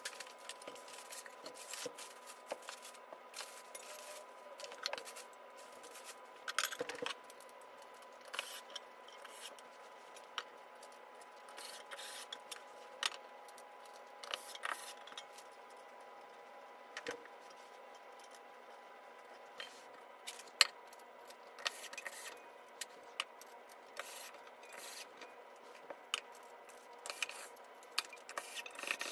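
Irregular clicks, taps and scrapes of flat-pack furniture being unpacked and put together by hand: cardboard and packing sheets moved, metal table legs and screws handled and set against the tabletops. One sharper click stands out about two-thirds through, over a faint steady hum.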